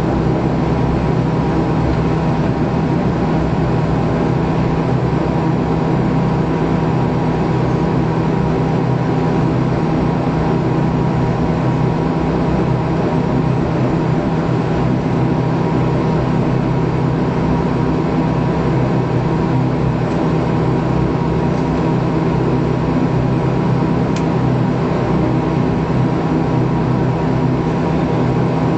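Bombardier Q400's turboprop engine and six-bladed propeller running at low power as the aircraft taxis, heard from inside the cabin beside the engine: a steady drone with several steady humming tones layered in it.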